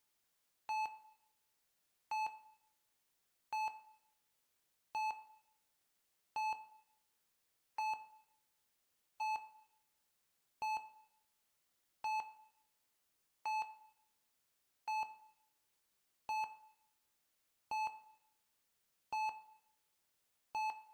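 Heart rate monitor beeping steadily: one short, clear beep about every one and a half seconds, each fading quickly, in an even rhythm that marks a steady heartbeat.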